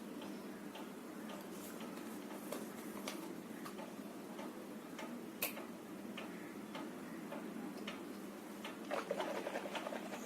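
Close-miked chewing: faint, scattered mouth clicks and smacks, with a sharper click about five and a half seconds in and a busier patch of chewing near the end.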